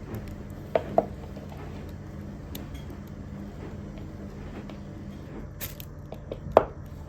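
Kitchenware and food containers being handled: a few sharp clinks and knocks, two close together about a second in and another pair near the end, over a steady low hum.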